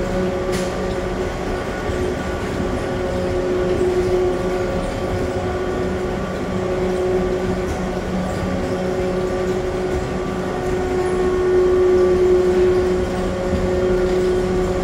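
Airport people-mover train running at speed, heard from inside the car: a steady motor hum with several held tones over an even rolling rumble, swelling slightly about twelve seconds in.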